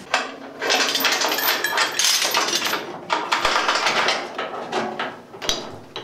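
Heavy steel chain rattling and clinking as it is handled and wrapped around a steel chassis rail, with a couple of brief knocks.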